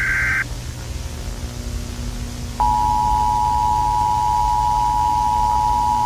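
Emergency Alert System-style broadcast signal: the end of a SAME header data burst just after the start, then low hum and static, then about two and a half seconds in the steady two-tone EAS attention signal begins and holds.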